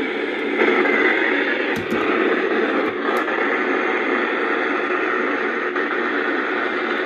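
Radio static: a steady hiss from a radio receiver, with a couple of faint clicks, filling the gap where no broadcast voice comes through.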